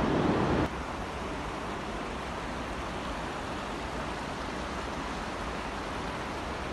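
Steady rushing of flowing water among the boulders of a flood-scoured riverbed. It is louder for the first moment, then drops sharply to a steady lower level just under a second in.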